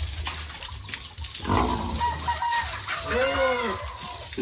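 Farm animals calling: short pitched calls that rise and fall, one about three seconds in, with a rougher call near the middle.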